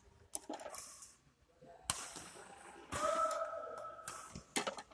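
Badminton rally: sharp clicks of rackets striking the shuttlecock, with players' shoes scuffing on the court. A drawn-out high tone lasts about a second, starting around three seconds in.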